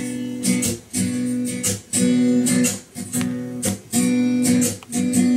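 Acoustic guitar strumming a steady run of chords, the intro to a song.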